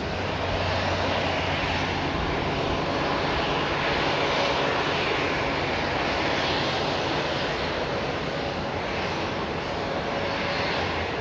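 Steady jet noise from an Airbus A319-100 during pushback: an even hiss with a low hum and a faint steady whine, unchanging throughout.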